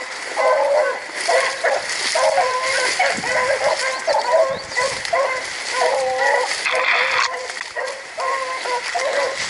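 A pack of rabbit-hunting hounds baying continuously in overlapping, wavering cries, the sound of dogs running a rabbit's trail. Dry grass and brush rustle and crackle as someone pushes through it.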